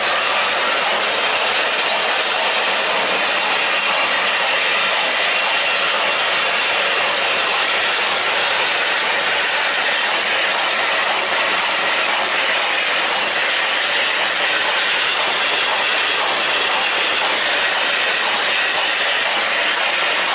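Positive-and-negative-twist barbed wire machine running, its mechanism clattering steadily.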